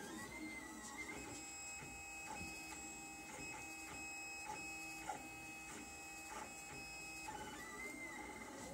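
Lulzbot TAZ 3 3D printer's stepper motors whining as it prints, moving the print head and bed. The pitch wavers up and down at first, holds steady for several seconds with small ticks at each change of direction, then wavers again near the end.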